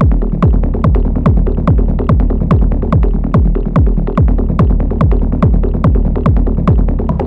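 Psy-techno pattern played on an Elektron Model:Cycles groovebox: a steady four-on-the-floor kick drum with a quickly falling pitch, about two and a half beats a second, with short hat-like clicks between the kicks over a droning bass.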